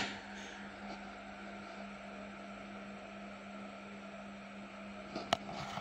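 Steady low electrical hum, with a sharp click about five seconds in.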